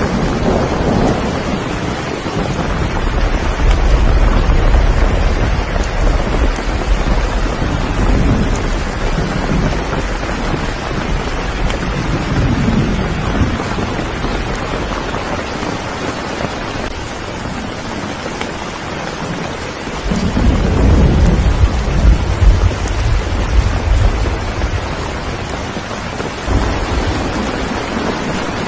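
Steady heavy rain with low rolls of thunder, swelling into louder rumbles a few seconds in and again about two-thirds of the way through.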